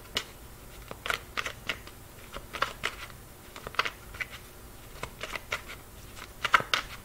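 A deck of tarot cards being shuffled by hand, an overhand shuffle: a run of short, sharp card snaps and flicks coming irregularly, a few a second.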